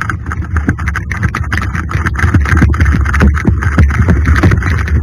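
Wind buffeting and rumbling on a body-worn camera's microphone as the wearer runs across grass, with irregular knocks and rattles of handling and gear.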